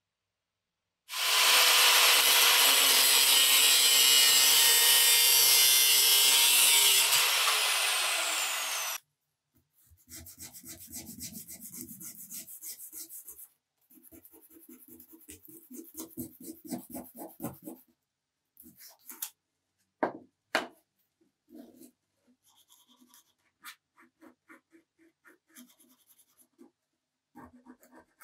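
A power tool runs loudly for about eight seconds, then winds down. After it, sandpaper is rubbed by hand over the wooden marking gauge in quick rhythmic strokes, ending in scattered light taps and rubs.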